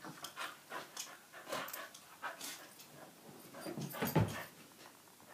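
A puppy play-fighting with another dog: a quick run of short dog noises and scuffles, the loudest about four seconds in.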